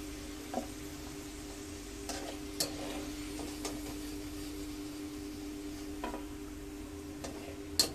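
Besan-coated okra strips frying in hot oil in a kadhai, with a steady sizzle. A wire spider skimmer clinks against the pan about seven times as the pieces are scooped out, the loudest clink near the end. A steady low hum runs underneath.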